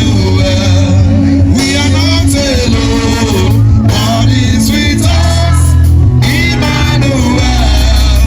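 Live gospel praise band playing with heavy bass and guitar, with voices singing over it in phrases broken by short pauses.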